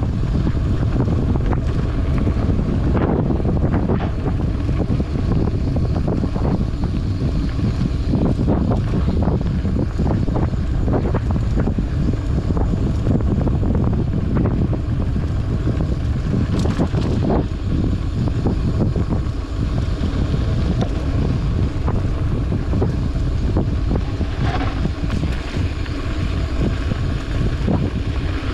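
Wind buffeting the microphone over the steady rumble of mountain-bike tyres on a dirt trail, with frequent small clicks and rattles from the bike over bumps.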